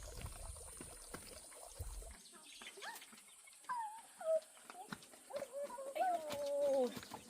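Domestic chickens calling: a few short calls that fall in pitch, then one longer drawn-out call near the end. A low rumble runs under the first two seconds.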